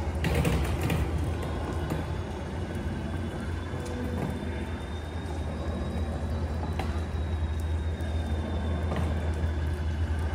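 Outdoor ambience in steady rain: a constant low rumble under an even hiss of rain, with scattered drips and taps, and a faint thin high tone that rises slightly and falls back over several seconds.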